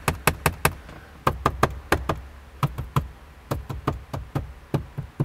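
Fingers tapping and knocking repeatedly on the upper dashboard trim piece of a 2013 Toyota RAV4, in short quick runs with brief pauses. The knocking tests the trim for a dash rattle, which is traced to this trim piece flexing.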